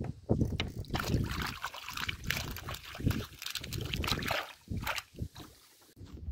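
Water sloshing and trickling as a fishing keepnet is handled in the water against a boat's side, with irregular splashes and handling knocks; it dies down near the end.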